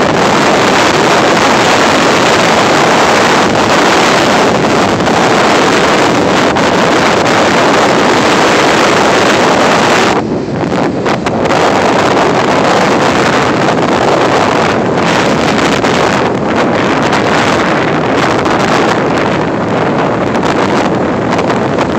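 Wind buffeting the microphone, a loud steady rushing roar that dips briefly about ten seconds in.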